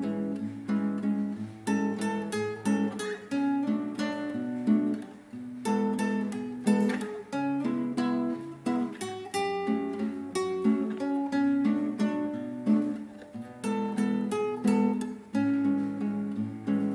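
Background music played on acoustic guitar, a steady run of plucked notes and strums.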